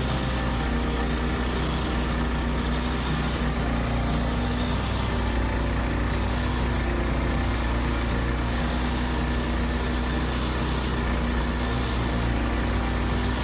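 A small engine running steadily at a constant speed, with a continuous low hum.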